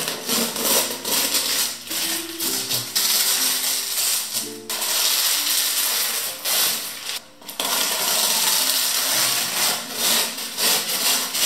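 Tape being peeled off wooden slats, a rasping tearing noise in two long stretches, about three seconds in and again about seven and a half seconds in, over soft piano music.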